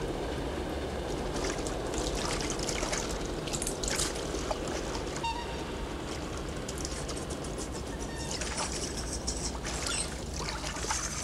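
Bath water trickling and splashing as a child is washed with a soapy sponge in a bathtub, in irregular small splashes over a steady low hum.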